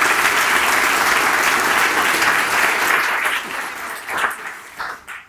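Audience applauding. The clapping holds steady, then thins to a few scattered claps and dies away over the last couple of seconds.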